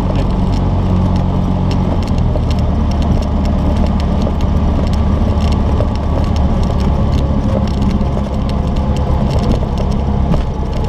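Cessna 172's piston engine and propeller running steadily as the plane rolls along the runway, with the engine note shifting slightly about two seconds in.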